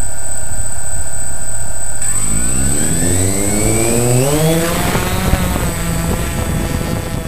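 DJI Phantom quadcopter's motors and propellers whirring steadily at idle, then rising in pitch from about two seconds in as the drone throttles up and lifts off.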